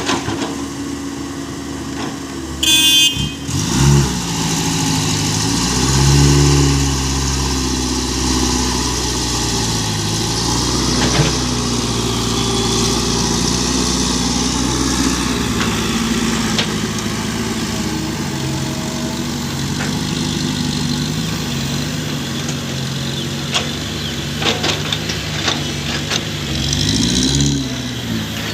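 Small six-wheel truck's engine running, its revs rising and falling several times. A brief high squeal about three seconds in.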